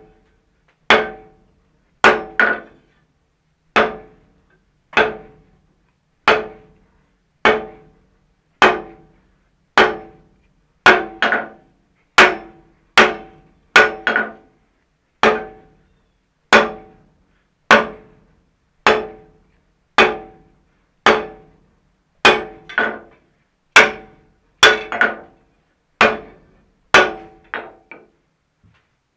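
Hand hammer striking a red-hot steel hinge strap on an anvil, forging it. The blows come about one a second, sometimes two in quick succession, and each rings briefly.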